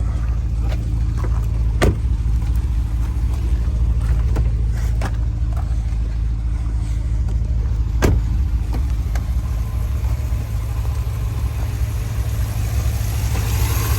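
SRT Jeep's V8 engine idling steadily, running after a freshly replaced alternator. A couple of sharp clicks cut through, about two seconds and eight seconds in.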